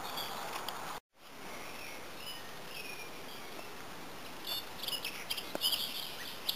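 Small birds chirping in short calls over a steady background hiss, the calls coming more thickly in the last two seconds.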